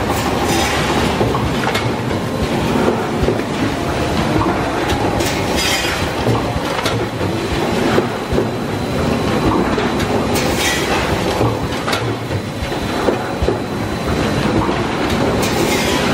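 Mini linear servo pouch packaging machine running: a steady clatter of small clicks and knocks from its moving parts, with a short burst of hiss about every five seconds.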